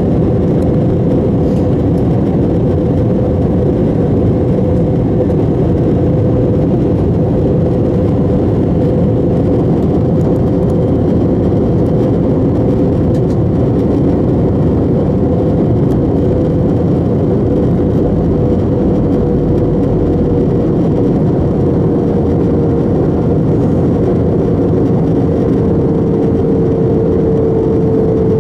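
Airbus A321 cabin noise on approach: a steady rush of jet engine and airflow with a humming engine tone that sinks slightly in pitch in the last ten seconds or so, as thrust eases.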